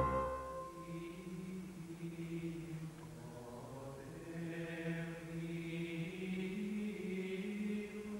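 Slow vocal chant, voices holding long notes that shift only slowly in pitch. The instrumental title music rings away in the first second.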